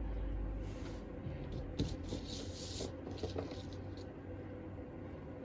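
Light handling noises on a workbench: a few small clicks and taps, and a brief scraping rustle about two seconds in, over a low steady hum.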